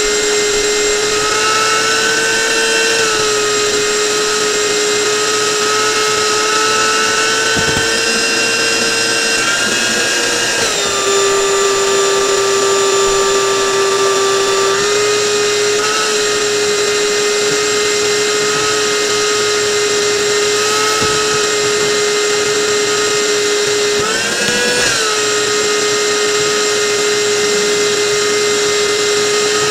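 A handheld electric power tool running continuously at high speed. Its whine dips in pitch for a few seconds about a third of the way in, as if pressed under load, and briefly rises again later.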